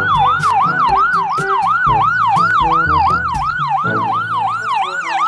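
Ambulance's electronic siren in a fast yelp, its pitch sweeping down and up about three to four times a second.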